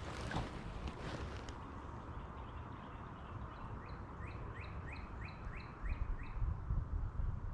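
A songbird calling a quick run of about eight short rising notes, evenly spaced, starting about three and a half seconds in. Under it is a low rumble, with a few clicks near the start.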